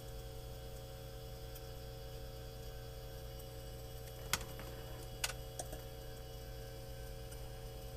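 A steady low hum, with a few soft clicks a little over four and five seconds in from buttons being pressed on the aircraft's EDM 900 engine monitor during its fuel-sender calibration setup.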